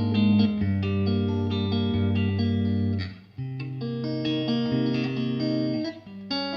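Ibanez AZES31 electric guitar played through a Mesa Boogie Express 5:25 valve amp: ringing chords over a held low note. The chords change with a short break about three seconds in and another near the end.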